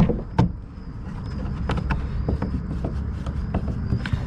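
Screws being hand-driven with a long screwdriver into a kayak bow mount's brackets: a couple of sharp clicks right at the start, then faint scattered clicks and scrapes of the hardware being handled, over a steady low rumble.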